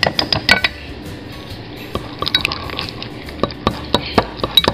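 A metal utensil stirring thick mayonnaise-based tartar sauce in a glass Pyrex bowl: wet squishing with irregular clinks of metal on glass, easing off briefly about a second in and then coming thick and fast again.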